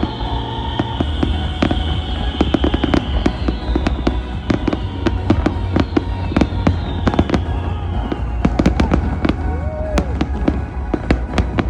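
Fireworks display going off continuously: a rapid, dense run of bangs and crackling reports, with the show's music playing underneath.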